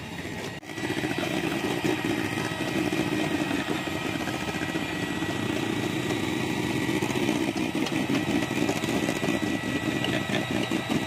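Electric mixer whipping egg whites for soufflé pancake batter: a steady motor whir that gets louder just under a second in and holds at a high speed.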